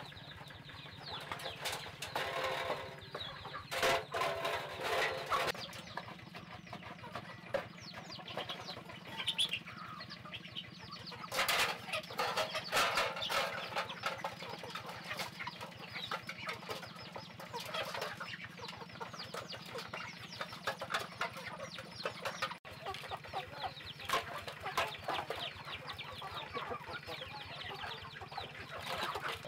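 Domestic chickens clucking and flapping their wings as they crowd a feeder, with louder flurries about four seconds in and again around twelve seconds in.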